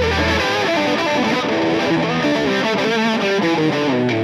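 Rock band playing, led by a distorted electric guitar running quickly through a string of notes; a low held note drops out about half a second in.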